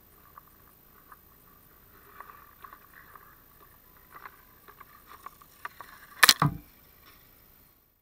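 Hockey skate blades scraping and ticking on lake ice as a skater approaches. About six seconds in, a loud thump with a deep low end.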